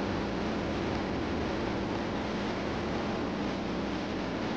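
Steady engine-room machinery noise aboard a ship: an even roar with a low hum underneath, with no separate knocks or clanks standing out.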